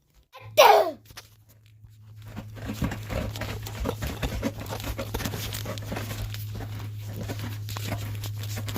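A short, sharp call that slides steeply down in pitch, then steady rustling and light pattering from an animal moving about, over a constant low hum.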